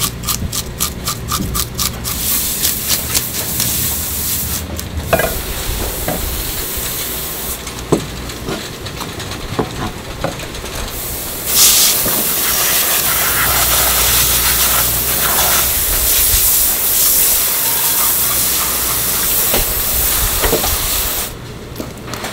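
Metal fish scaler scraping scales off a whole fish in quick, even strokes, followed by water hissing. About halfway through, a pressurised water spray gun starts hissing loudly as it rinses the fish, and cuts off near the end.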